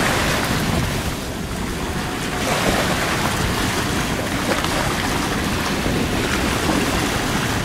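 Small waves washing onto a rocky lagoon shore, with wind buffeting the microphone.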